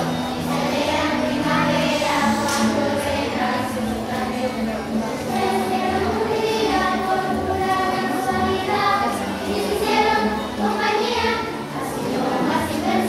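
A group of children singing together as a choir, with acoustic guitar accompaniment.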